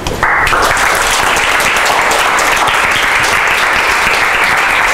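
Audience applauding, starting suddenly just after the start and going on at a steady level.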